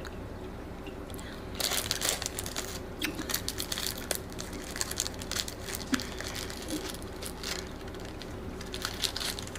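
Plant-based chocolate bar and its packaging: irregular crinkling and crunching close to the microphone, starting about one and a half seconds in.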